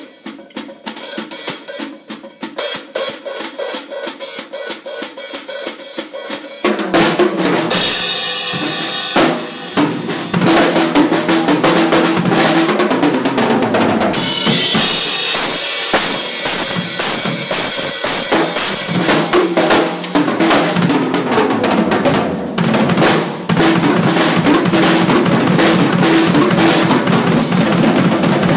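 Drum kit played hard and fast. It starts with separate hits for about six seconds, then breaks into a dense, rapid stream of bass drum and snare strokes under a wash of cymbals.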